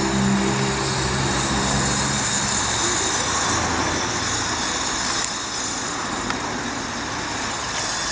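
Miniature 15-inch gauge steam locomotive running slowly, with a steady hiss of steam and noise of wheels on the rails. A low steady hum fades out in the first couple of seconds.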